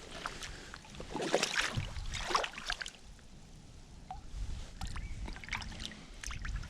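Water splashing and sloshing in irregular bursts, loudest a second or two in.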